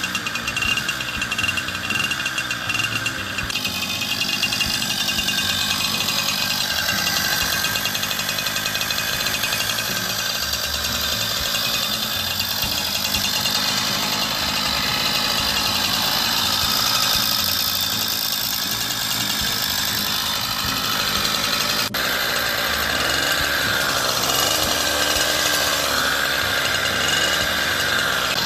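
Riga D8 single-cylinder two-stroke engine on a homemade motorized bicycle, running steadily.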